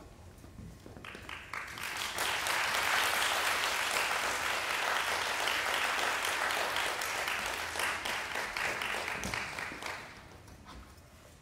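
Audience applauding, building up over the first two seconds and dying away about ten seconds in.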